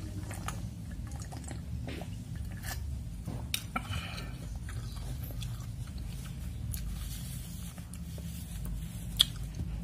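Chewing and small mouth sounds of a person eating, with scattered clicks. About four seconds in, a glass bowl is set down on the table with a short ring, and a sharp click sounds near the end.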